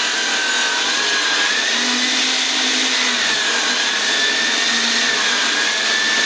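Table saw running steadily while ripping a heavy ash log, its motor whine wavering slowly up and down as the blade is pushed into the wood.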